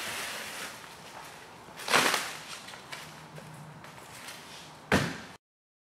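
Handling noise from a hand-held roll of stretch wrap in plastic ring holders: a short swish about two seconds in and a sharp knock near the end, after which the sound cuts off suddenly.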